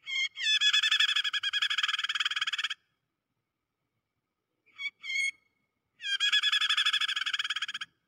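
Prinia (prenjak) distress calls, the call of a trapped bird played as a trapping lure. Two long bouts of fast chattering notes, about ten a second, with a few short calls between them about five seconds in.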